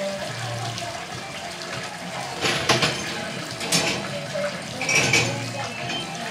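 Water running steadily from a kitchen tap, with a few clinks and knocks about two and a half, almost four and five seconds in.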